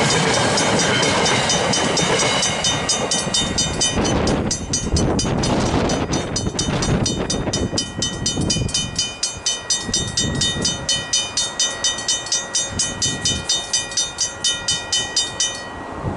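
Freight wagons rumbling past over the crossing, fading out after about seven seconds. Throughout, the crossing's Griswold mechanical bells ring at an even beat of about three strokes a second, stopping abruptly near the end once the train has cleared and the barriers rise.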